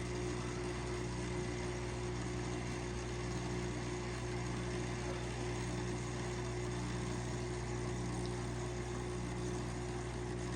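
Kenmore dishwasher's drain pump running with a steady electric hum as it pumps the water out after the cycle is cancelled: the machine is draining properly again after the repair.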